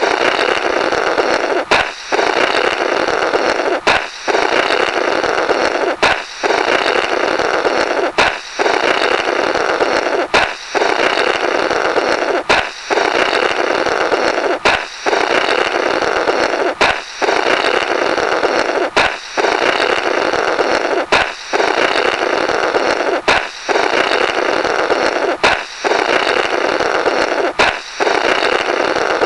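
Comic 'blorrrt' balloon sound effect playing on a loop: a balloon pops with a sharp crack, then someone blows noisily through the burst rubber for about two seconds. The cycle repeats about every two seconds, some fourteen times.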